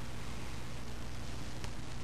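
Steady hiss and low hum, with one faint click near the end from a pick working inside a Master Lock No. 532 padlock.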